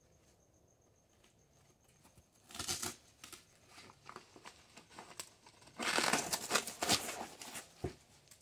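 Hook-and-loop (Velcro) flap on a plate-carrier back panel being peeled apart: a short rip about two and a half seconds in, then a longer ripping run from about six to seven seconds, with light fabric rustling between.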